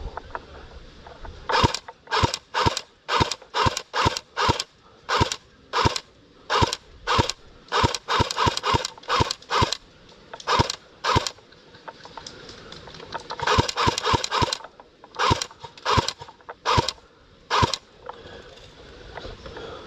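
Airsoft electric rifle firing sharp single shots, roughly two a second, about two dozen in all, with a short pause past the middle and then a quick cluster of shots.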